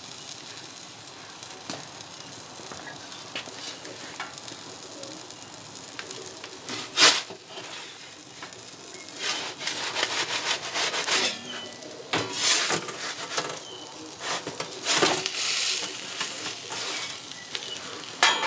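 Steady hiss and crackle of the wood fire in a rocket stove pizza oven. Over it, a metal pizza peel scrapes and knocks against the stone baking slab several times as it is worked under a pizza that is sticking, with the sharpest clatter about seven seconds in.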